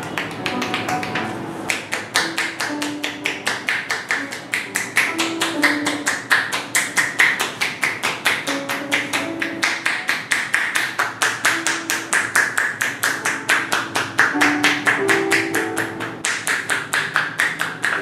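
Percussive massage: a masseuse's hands striking a bare leg in quick, steady slaps, about four or five a second, over soft background music.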